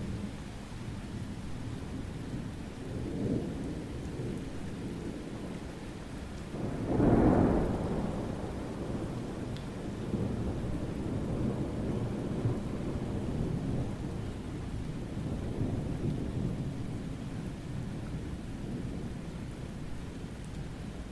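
Summer thunderstorm: steady rain with rolling thunder, a louder clap of thunder rumbling about seven seconds in and a smaller roll a few seconds earlier.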